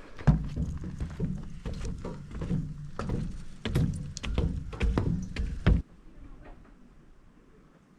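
Footsteps knocking on a rocky trail, about two a second, over a low rumble of wind on the microphone; the sound stops abruptly about six seconds in.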